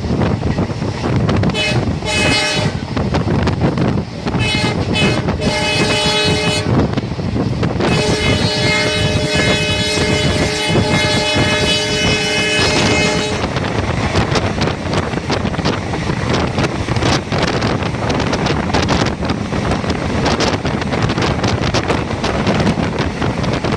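A moving train heard from on board, with rumble and wind noise. A train horn sounds twice briefly and then holds one long blast of about five seconds. Through the second half the wheels clatter over the rails.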